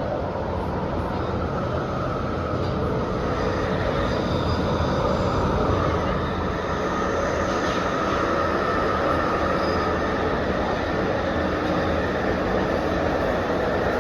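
London Underground 1996 Tube Stock train running at speed, heard from inside the car: a steady rumble of wheels on rail with a sustained whine.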